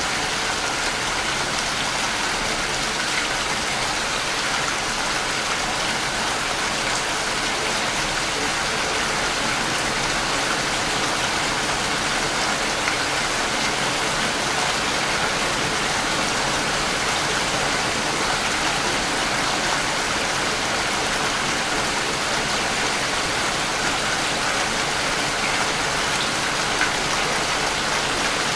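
Steady rain falling on broad leaves: an even, unbroken hiss of many drops, with no thunder or gusts.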